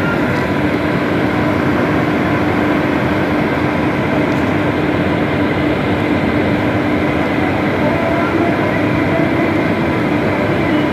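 Indian Railways electric locomotive standing at close range with its machinery running: a loud, steady whirring hum with a constant low tone under it.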